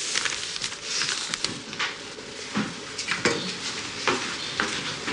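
Food frying in a pan: a steady sizzle with many small crackles and sharp clicks.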